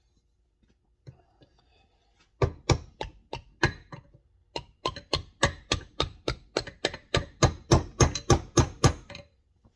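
Hammer blows on a dowel used as a drift, driving a stuck piston through a 1956 Pontiac brake master cylinder's bore: about twenty sharp knocks, roughly three a second, starting about two seconds in and growing louder.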